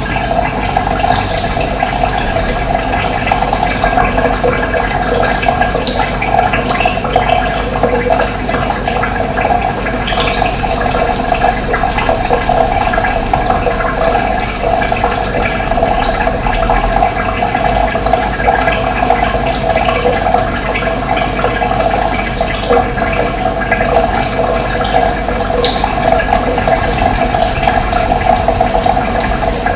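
Running water flowing steadily, a continuous rushing sound.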